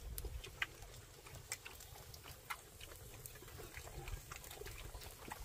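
Pot of soup cooking over an open wood fire, with faint, irregular crackles and pops.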